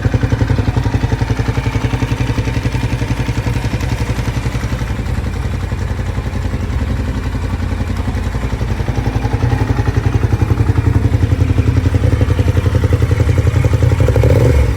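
Ducati Diavel's L-twin engine idling through its stock exhaust, a steady, even rapid pulse with a deep low end.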